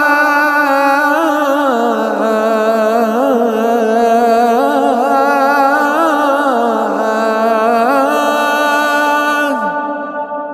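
A muezzin chanting the adhan, the Islamic call to prayer, drawn out in one long ornamented phrase with the pitch wavering up and down. Near the end the voice slides down and stops, and an echoing tail fades away after it.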